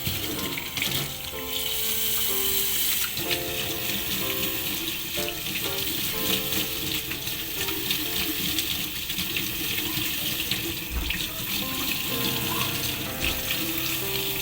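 A water tap running steadily into a sink for handwashing under running water. Soft background music with slow, held notes plays underneath.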